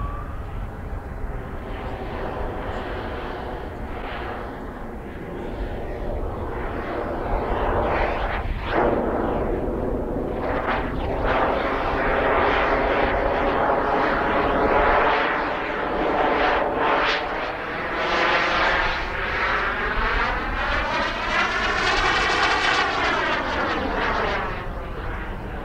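Model jet turbine engine of a CARF Models Mephisto RC jet running in flight, a steady whine with a dense rushing exhaust. It grows louder from about seven seconds in, and near the end its tone sweeps up and back down as the jet passes close.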